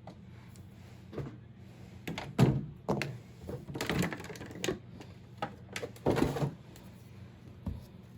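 A doll being taken out of its retail box by hand: irregular clicks, knocks and rustles of cardboard and plastic packaging, in separate bursts about a second apart.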